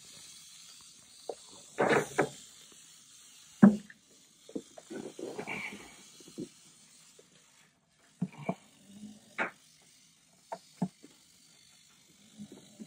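Scattered clicks and knocks, with a short rustle about five seconds in, from hands handling a clear plastic deli cup over a glass tank.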